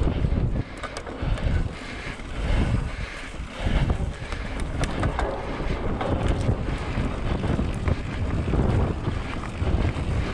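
Wind buffeting the microphone during a mountain-bike ride, coming in gusts, with scattered sharp clicks and rattles.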